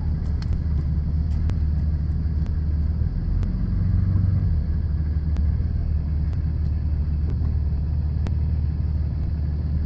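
Pickup truck's engine heard from inside the cab as a steady low rumble while the truck rolls slowly at low speed, swelling slightly about four seconds in.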